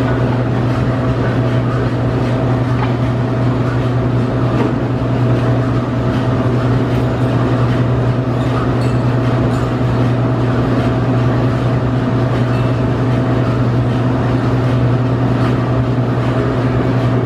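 Amtrak GE P42DC diesel locomotive's 16-cylinder engine running steadily at a standstill: a constant low drone with a fainter higher tone above it.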